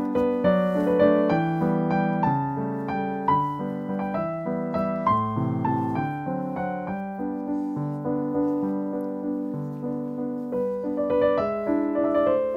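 Background piano music: a gentle melody of single notes and chords played continuously.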